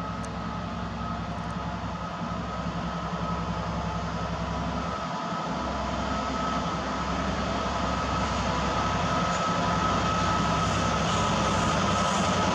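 Freightliner Class 66 diesel locomotive's two-stroke V12 engine running under load as it approaches hauling a container freight train, growing steadily louder. A steady high whine rides over the low engine drone.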